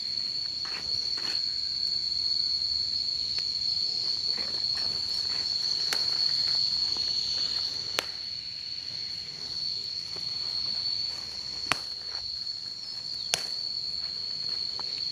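Insects trilling steadily on one high pitch, with leaves rustling and a few sharp snaps as chili peppers are picked by hand from the plants.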